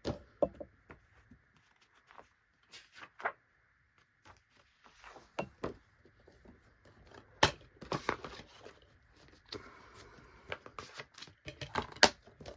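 A plastic DVD case and a paper parents' guide booklet being handled: paper rustling, with several sharp clicks and snaps from the case scattered through.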